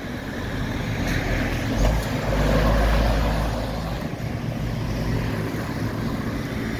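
Motor vehicle passing close by: engine and road noise swell to a peak about two seconds in, then settle into a steady low engine hum.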